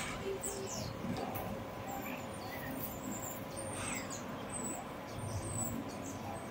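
City-centre street ambience: a steady background din with short, high bird chirps every second or so.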